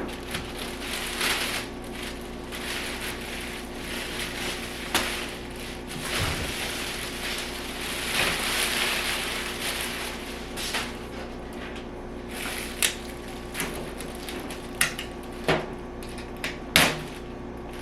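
Plastic wrapping rustling and crinkling as it is pulled off a portable clothes dryer, with several sharp clicks and taps near the end.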